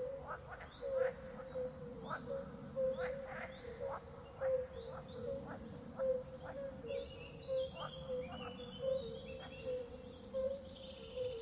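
Outdoor wildlife ambience of birds calling: a short low call repeated about twice a second, with higher twittering chirps joining about seven seconds in.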